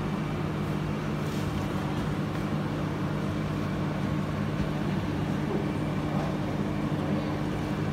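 Steady low hum over a constant hiss from aquarium pumps and aeration.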